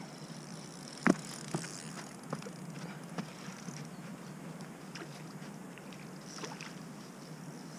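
Scattered sharp knocks and taps from fishing tackle being handled at a rod pod. The loudest comes about a second in and smaller ones follow, over a steady low outdoor background.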